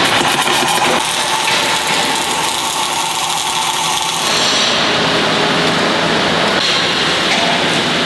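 MIG welding arc on steel plate, a steady crackling hiss that changes in tone about four seconds in.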